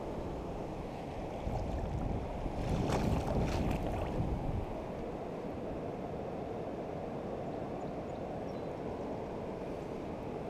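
Steady rush of shallow river water, with a louder burst of splashing about three seconds in as hands reach into the water among the rocks.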